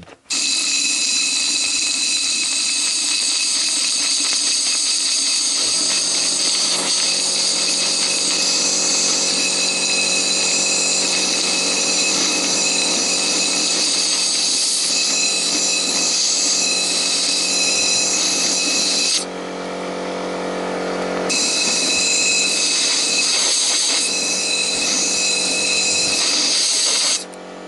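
Compressed air hissing and whistling from a blow gun held at the spark-plug hole of a cylinder head, blowing aluminium tapping chips out of the cylinder. A steady low hum joins about six seconds in. The air stops for about two seconds roughly two-thirds of the way through, then resumes.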